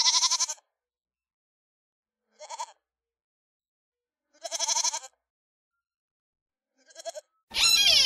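Goats bleating: four short, quavering bleats a second or two apart, the first and third the loudest. Near the end a louder, different call with falling pitch begins.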